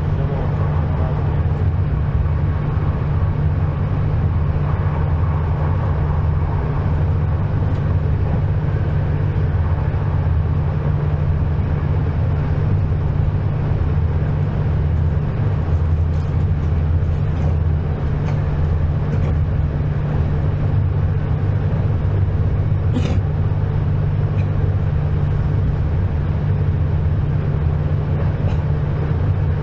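Regional passenger train running steadily, a continuous low rumble and drone with a haze of rolling noise. A few faint clicks come through, and one sharp knock about three-quarters of the way through.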